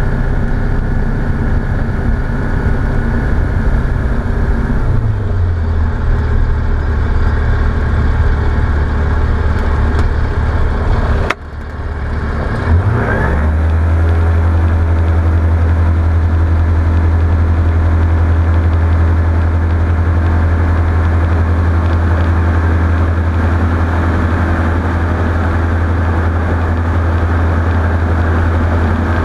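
Light aircraft's piston engine running steadily, heard from the cockpit. About five seconds in its pitch drops a step. Around eleven seconds the sound dips sharply for a moment, sweeps back up, and then runs on steadily and louder.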